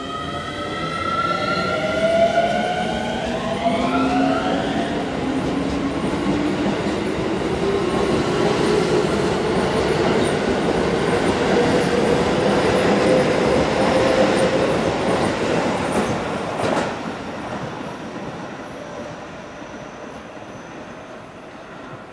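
Keio Line electric commuter train pulling away from the platform and gathering speed. Its traction motors whine in several tones that rise in pitch over the first few seconds, then a lower whine keeps climbing under the rumble and clatter of the wheels. A sharp clack comes at about seventeen seconds, and the train fades away near the end.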